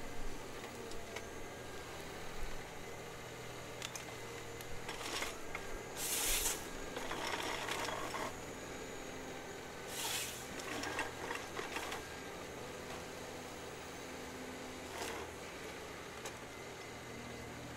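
Forestry machine's diesel engine running steadily at a distance, with short bursts of rustling, crackling noise over it about six seconds in and again about ten seconds in.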